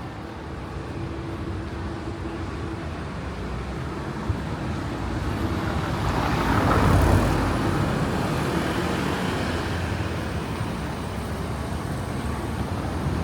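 Street traffic noise, with a vehicle passing close by about halfway through: the sound grows louder, then fades away.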